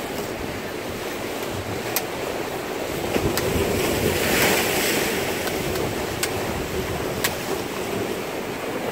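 Sea waves washing against shore rocks with wind buffeting the microphone; a wave surges louder about four to five seconds in. A few sharp clicks are heard along the way.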